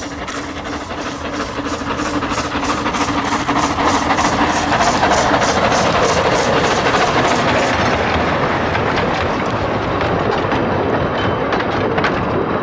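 Small narrow-gauge steam train running close by, its sound swelling to a peak about four seconds in and then holding, with a fast regular beat.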